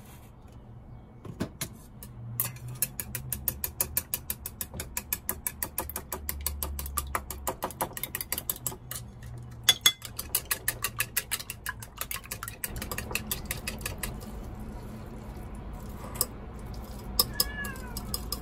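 Chopsticks whisking raw eggs in an enamel bowl: quick, regular clicks of the sticks against the bowl that stop about twelve seconds in. A cat meows near the end.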